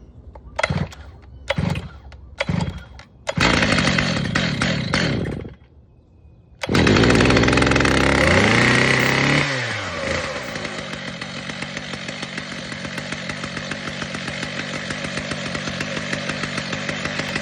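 Gas chainsaw being pull-started: three short bursts, then it fires and runs about two seconds before dying. It catches again about a second later, revs high for about three seconds, then drops to a steady idle as it warms up.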